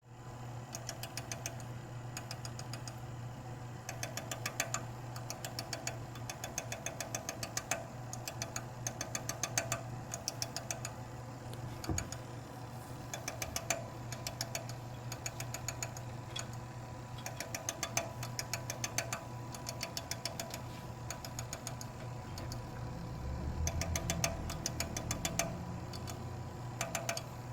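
Computer power supply fan making an abnormal noise: short runs of rapid ticking, recurring every second or so, over a steady low hum. The noise is absent at first boot and starts suddenly after a while of use, and the owner finds no cable catching on the fan.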